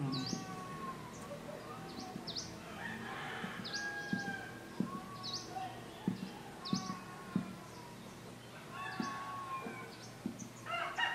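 Soft, dull taps of finger-on-finger percussion over a person's abdomen, a handful of them in the middle of the clip, with repeated bird calls and high chirps behind them.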